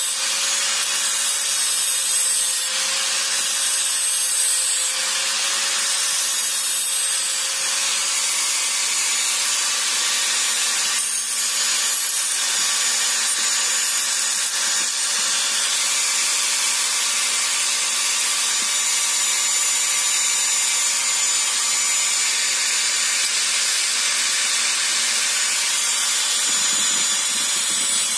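Electric angle grinder running steadily, its disc grinding a small metal part held in locking pliers: a constant motor whine under the steady hiss of the disc on metal.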